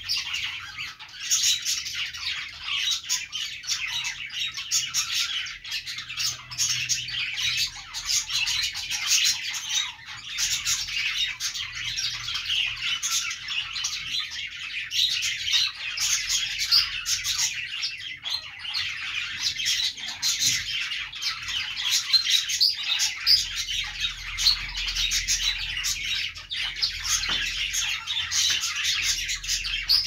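Several caged budgerigars chirping and chattering together, a dense unbroken stream of short, high, overlapping calls with the odd squawk.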